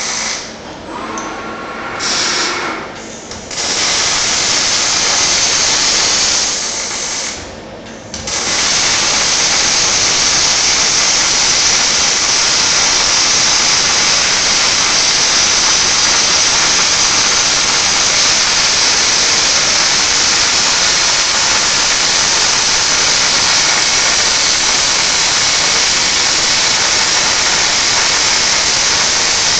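A Panasonic welding robot's MIG arc hissing and crackling steadily as the torch lays a weld. The arc stops and restarts a few times in the first eight seconds, then runs unbroken.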